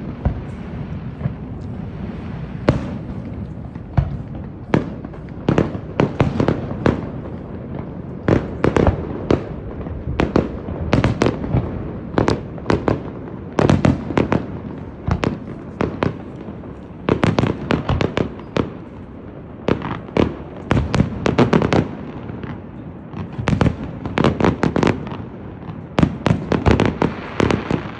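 Fireworks display: aerial shells bursting in rapid volleys, dozens of sharp bangs in dense clusters with short lulls between, over a continuous low rumble.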